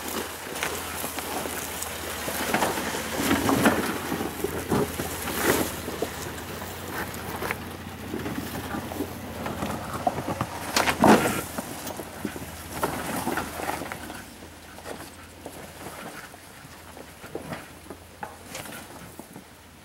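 Toyota Land Cruiser 80 series crawling slowly over a rocky trail: irregular crunching and knocking on rock and dry leaves over a low, steady engine rumble. It grows quieter over the last few seconds as the truck moves away.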